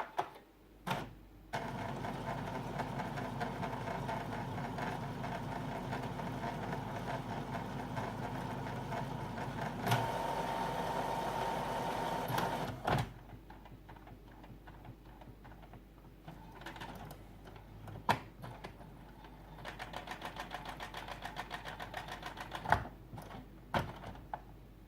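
Epson WorkForce WF-3620 inkjet printer's mechanism running while it charges newly fitted ink cartridges. It gives a steady mechanical whir for about eleven seconds that cuts off suddenly, then quieter clicks and a short run of fast, even ticking near the end.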